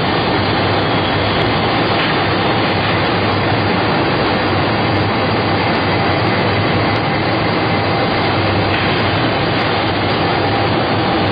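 Baby diaper production machine running at speed: a loud, steady mechanical din that does not let up, with a faint steady whine in it.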